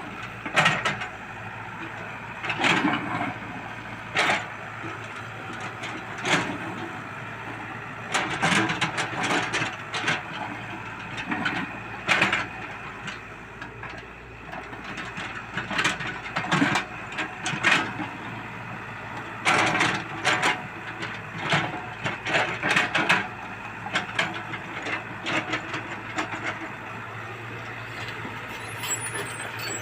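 Excavator engine running steadily under load, with irregular sharp knocks and clanks from the digging work throughout.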